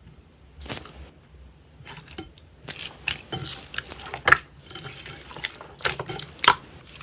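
Slime being played with, giving irregular sticky clicks and pops that come thick and fast from about two seconds in.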